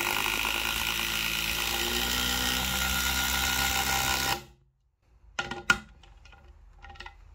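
DeWalt cordless impact driver driving a 110 × 6 mm screw into a wooden beam, running steadily under load for about four and a half seconds and then stopping abruptly as the trigger is released before the screw is fully in. A few light clicks follow.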